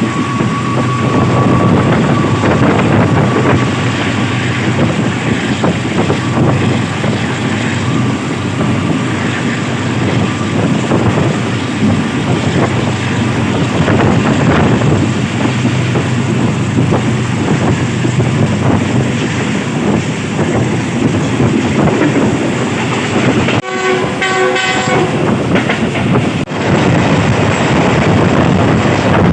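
Passenger train running fast, heard from aboard: a steady loud rumble and rattle of the coach and wheels on the rails. A horn sounds briefly about three-quarters of the way through.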